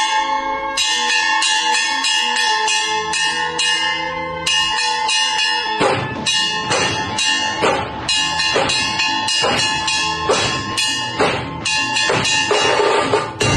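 Dhol-tasha music: bell-like metallic ringing over a low line that steps in pitch. About six seconds in, heavy drum strikes join, coming roughly every half second.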